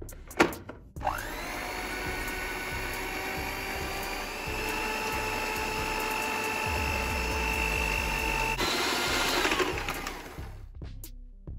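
Electric mixer motor turning dough hooks, kneading flour and milk into bread dough. It starts with a rising whine about a second in, then runs steadily. Its sound changes about three quarters of the way through, and it winds down shortly before the end.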